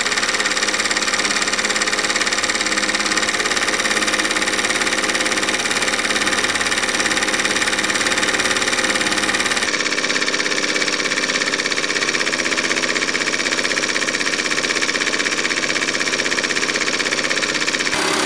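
Jensen 25G toy steam engine running steadily under live steam in reverse, belt-driving its small generator. The sound changes abruptly about halfway through.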